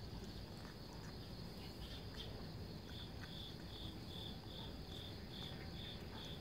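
Insects chirping: a steady high trill throughout, joined about three seconds in by a regular chirp repeating a little more than twice a second.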